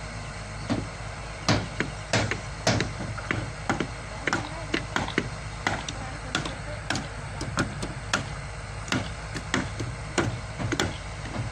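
Construction-site work noise: irregular sharp knocks and clacks, about one or two a second, over a machine's steady low hum.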